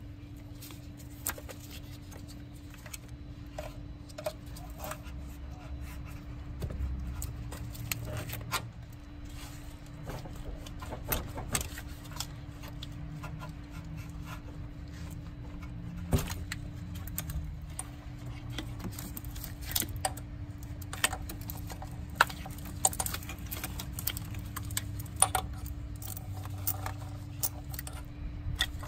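Hand work on a coolant hose at the thermostat housing: a spring hose clamp being handled and the rubber hose worked off, heard as scattered metallic clicks, rattles and scrapes over a steady hum.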